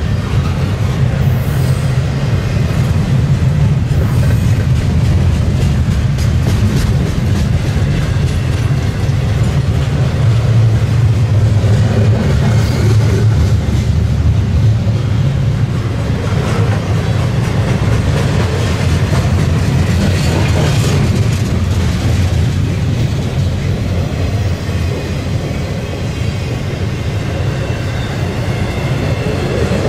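Double-stack intermodal well cars rolling past on the main line. The wheels on the rail make a steady heavy rumble, with faint clicking as they pass over rail joints.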